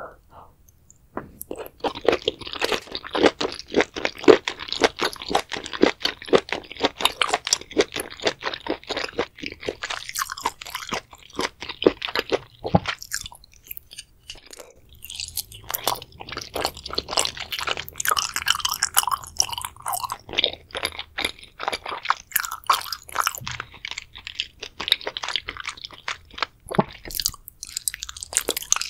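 Close-miked ASMR eating sounds: rapid chewing of spicy sauced seafood, heard as many quick clicks. The chewing is dense for the first several seconds, goes quiet briefly past the middle, then comes back in sparser bursts, with a bite of salmon near the end.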